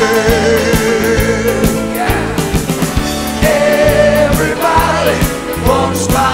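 Rock song playing, with singing over a steady drum beat.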